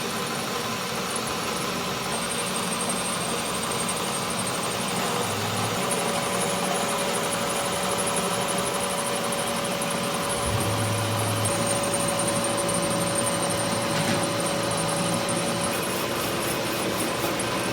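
Steady machine noise: an even hiss with a thin steady whine, and a low hum that comes in briefly twice.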